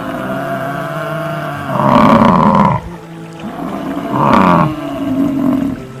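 A large animal roaring twice, the first call about a second long and the loudest, the second shorter, about four seconds in, over steady background music.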